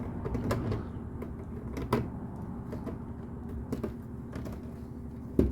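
Plastic LEGO pieces being handled and fitted, giving a few scattered clicks and taps, with the loudest click near the end.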